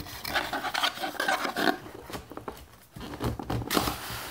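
Cardboard power-supply box being opened and its packaging handled: irregular scraping, rubbing and clicking of cardboard and wrapping.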